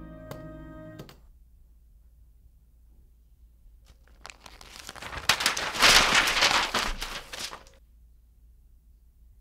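Dice rattling: a dense run of quick clicks that builds for about four seconds, is loudest in the middle and then stops.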